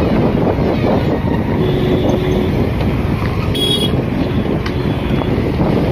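Wind rumbling over the microphone of a bicycle ridden fast through traffic on a wet road, with motor vehicles running alongside. A short high beep sounds about three and a half seconds in.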